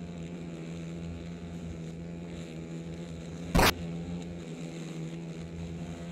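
Japanese giant hornets caught on an adhesive trap sheet, buzzing their wings in a steady drone as they struggle. About three and a half seconds in there is one short, sharp knock, the loudest sound.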